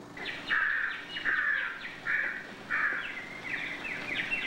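Shrill, whistle-like chirping notes on an old film's soundtrack: a string of short held notes, then quicker notes that slide down in pitch near the end.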